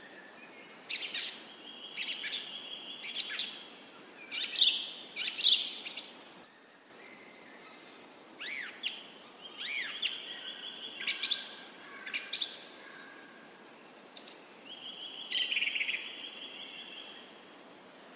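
Birds chirping and calling in irregular bursts: short high chirps and whistled notes, with a few quick arched calls, thinning out near the end.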